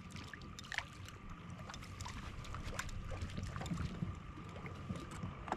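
Water lapping and trickling against a small fishing boat's hull, with scattered small clicks and knocks, under a faint steady high-pitched hum.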